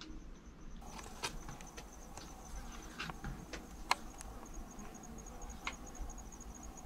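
Insect chirping in a steady, rapid pulsed trill, with scattered faint clicks and one sharper click about four seconds in.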